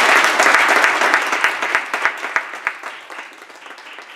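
Audience applauding, loud at first and dying away toward the end.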